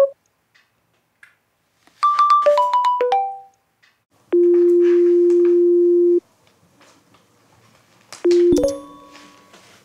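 Video-call app tones as a call is placed: a quick run of short electronic notes, then one steady low ringing tone lasting about two seconds, then a brief tone and a short chime near the end.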